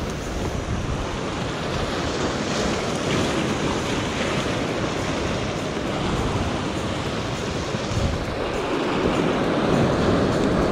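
Sea swell washing and surging against a rock ledge, with some wind on the microphone; it grows a little louder near the end as a wave surges up the rocks.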